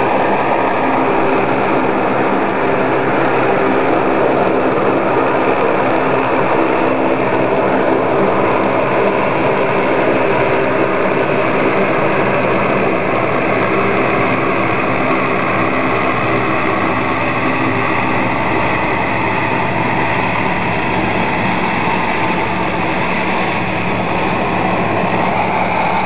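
A large engine running steadily at a constant speed: a loud, unchanging hum of several steady tones over a dense rush of noise.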